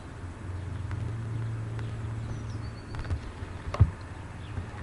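Steady low outdoor hum, with a few short knocks about three to four seconds in.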